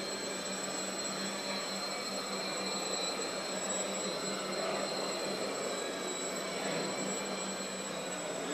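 Steady whirring of a tricopter's small electric motors and propellers in flight, with a constant high-pitched whine over it.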